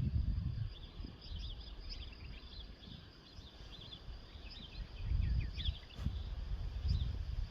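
Small birds chirping and twittering in quick short notes. Low rumbling gusts come and go beneath them, strongest at the start and again about five and seven seconds in.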